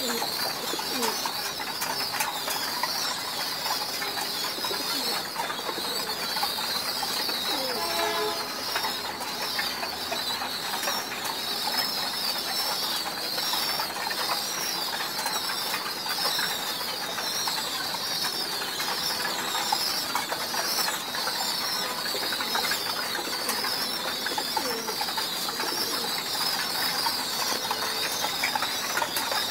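Caged pigeons in a loft: a few low coos over a continuous high-pitched chirping chatter from birds, with occasional wing flutters.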